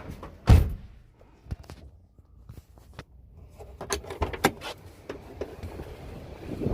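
A vehicle door shuts with a heavy thump about half a second in, followed by scattered clicks and rattles.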